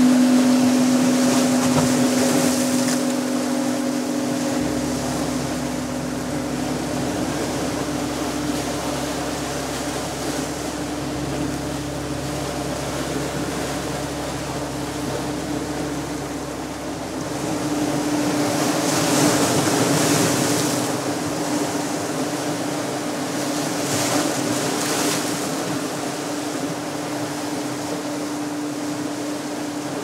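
Sea surf washing over a rocky shore, with steady low humming tones from a resonating gong held over it; deeper tones join a few seconds in and drop away about halfway through, and the surf swells twice in the second half.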